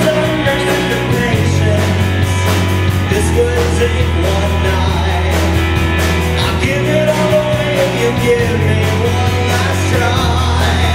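Live rock band playing: a male singer's voice over electric guitars, electric bass and a drum kit keeping a steady beat.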